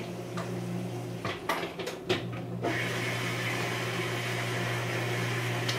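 Paper pages of an instruction booklet rustling and handled in a few short crackles, over a low steady hum. About three seconds in, a steady even hiss comes in and holds.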